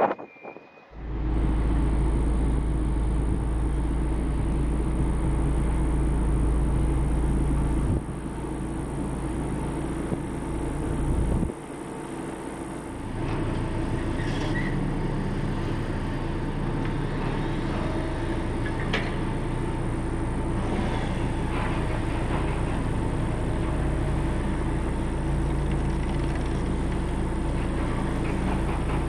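Heavy earth-moving machinery's diesel engine running steadily with a low rumble. The sound drops and changes abruptly around 8 and 12 seconds in, with a few faint knocks later on.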